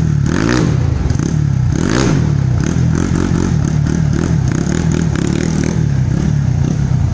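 Single-cylinder motorcycle running loudly through an aftermarket stainless 969 Xtreme exhaust. The engine is blipped twice, about half a second and two seconds in, revs rising and falling each time, then runs on as the bike pulls away.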